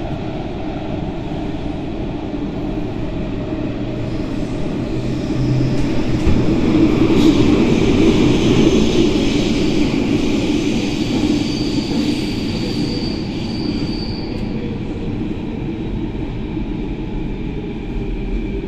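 Athens Metro train running, heard from inside the carriage: a steady rumble of wheels and motors that swells louder through the middle. A thin, high wheel squeal sounds for a few seconds past the middle.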